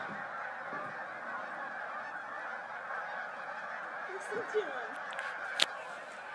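A large flock of geese flying overhead, many birds honking at once in a continuous din, with a few nearer honks standing out about four seconds in. A single sharp click about five and a half seconds in.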